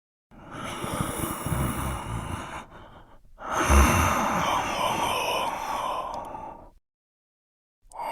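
Horror sound effect of two long, raspy, breathy exhalations like a ghostly sigh, the second louder and longer, with silence after.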